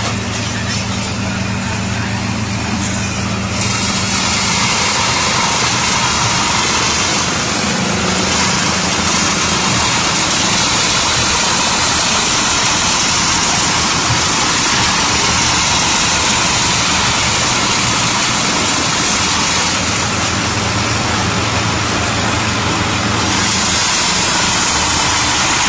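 Tractor engine running steadily, driving a chaff cutter that chops grass stalks and blows them out its spout. About four seconds in the noise grows louder and fuller, and stays so.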